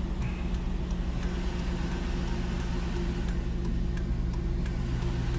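2003 Chevrolet Tahoe engine idling steadily, heard from inside the cab, with faint ticks now and then.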